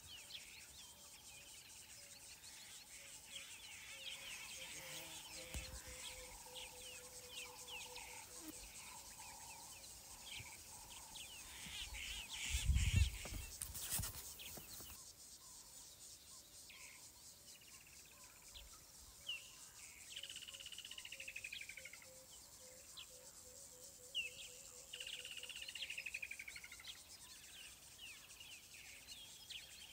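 Quiet bush ambience: birds chirping and calling, with a few falling calls in the second half, over insects trilling. About halfway through, a low bump and rumble, the loudest sound.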